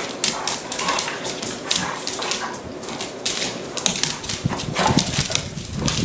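A Doberman and a pit bull play-fighting: dog play noises with constant scuffling and many quick, irregular clicks, like claws on a hardwood floor.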